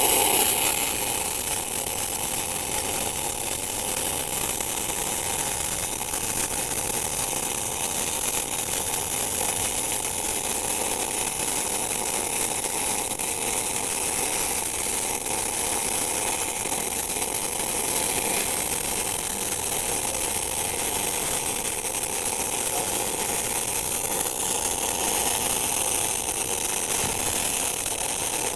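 Steady crackle and hiss of a MIG welding arc from a three-phase TOPGUN MIG 315VS welder, set to about 22.5 volts and running 1 mm solid wire. The bead is being laid on 20 mm-thick steel plate and the arc holds evenly with no breaks.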